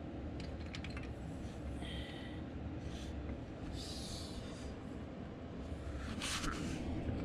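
Faint clinks and handling noise of a long wrench and socket on a cylinder-head bolt over a steady low hum, with a short breathy hiss about six seconds in.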